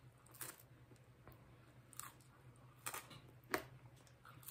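Faint biting and chewing of a thick-crust cheese pizza slice: a few scattered soft crunches and mouth clicks, the loudest about three and a half seconds in.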